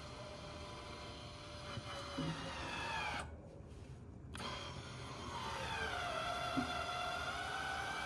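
Remote-controlled feed-inlet flap on a flail mower deck driven by its actuator motor: a thin motor whine that sags in pitch as the flap closes and stops, silence for about a second, then the whine starts again as the flap reopens. A soft knock about two seconds in and another near the end.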